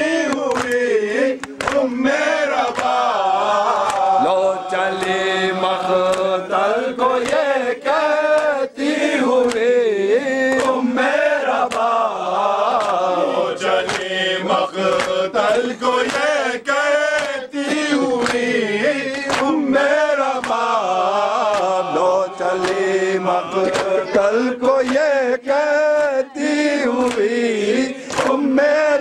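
Noha, a mournful lament, chanted by male voices in a steady rising-and-falling melody. Regular sharp slaps of hands beating on chests (matam) keep time under the chant.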